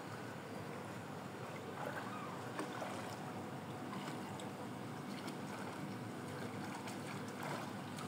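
Swimming-pool water sloshing and lightly splashing as a person swims slowly through it, over a steady outdoor hiss.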